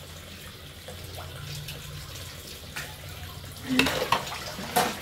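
Water running steadily from a tap into a sink as dishes are rinsed by hand, with a few sharp knocks of bowls being handled near the end.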